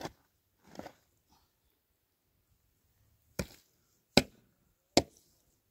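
Five sharp knocks. A moderate one comes at the start and a softer one just under a second later, then three louder ones follow near the end, evenly spaced about a second apart, each short with little ringing after it.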